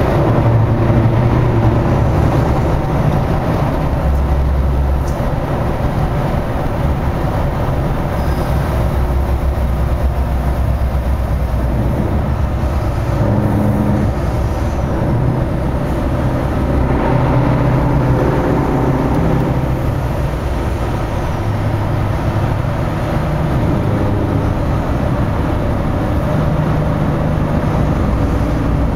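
Scania V8 truck engine running at a steady cruise, its low note shifting in pitch a few times, with tyre and traffic noise, all echoing in a road tunnel.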